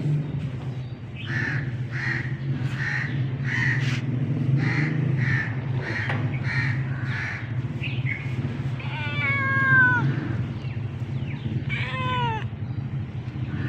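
A cat meows twice, each a drawn-out meow that falls in pitch, past the middle and again near the end. Before that, a crow caws about ten times in a steady series. A steady low rumble of traffic runs underneath.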